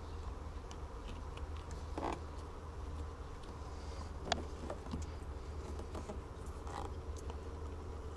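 A steady low hum with a few faint taps and a brief rustle, about two seconds and four seconds in, from small handling sounds.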